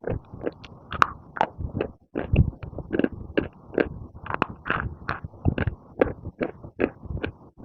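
Close-up crunching of baked clay being chewed: sharp crunches come about two to three times a second without a break.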